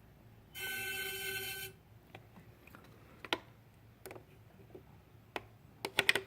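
A steady high whistle with several tones, lasting about a second, comes from the engine bay of a 2013 BMW 535i parked with its engine off. It is the symptom of a failing AC compressor, and replacing the compressor cured it. A few light clicks follow, several close together near the end.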